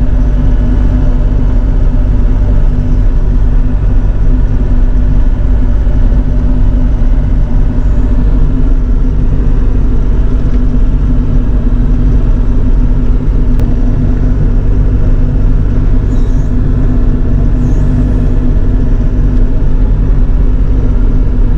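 Bobcat E42 mini excavator's diesel engine running steadily at working speed, loud and close, while the machine grades sand.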